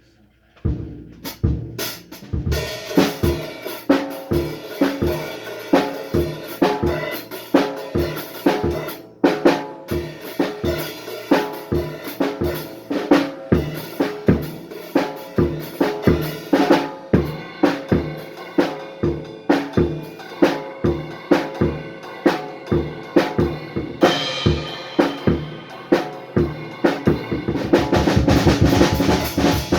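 A drum kit playing a steady beat on bass drum and snare, with pitched instruments underneath. About three seconds before the end the strikes come fast and close together in a louder fill.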